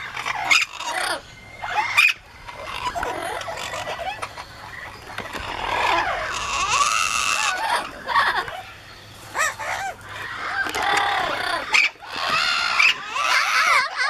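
A flock of yellow-naped, lilac-crowned and blue-fronted Amazon parrots screaming and squawking, with loud calls that rise and fall in pitch and sharp shrieks between them. The calling is loudest about six to seven seconds in and again near the end.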